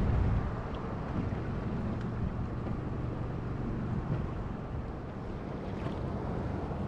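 Small boat's outboard motor running steadily at low speed, mixed with wind buffeting the microphone and water moving along the hull.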